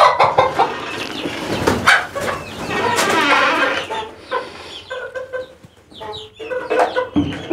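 A flock of desi chickens, hens and roosters, clucking with repeated short calls. There are a few sharp knocks in the first two seconds.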